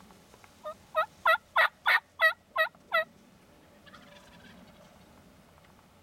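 Turkey yelping: a run of eight evenly spaced yelps, about three a second, the first faint and the rest loud.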